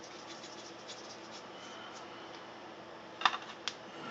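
Salt-substitute shaker shaken over a dish, giving faint scattered ticks and scratches, then two sharp clicks about half a second apart a little after three seconds in.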